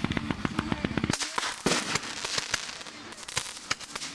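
Fireworks crackling: a rapid string of sharp pops over a low steady hum that cuts off about a second in, then thinning to scattered crackles.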